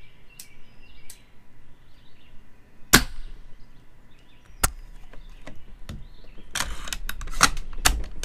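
A spring-powered Tokyo Marui VSR-10 airsoft sniper rifle fires one sharp shot about three seconds in, followed by a lighter click. Near the end comes a quick run of clicks and a rattle as the bolt is worked for the next shot.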